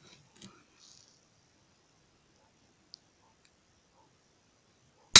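A few faint clicks, then right at the end a single sharp crack from a PCP air rifle firing.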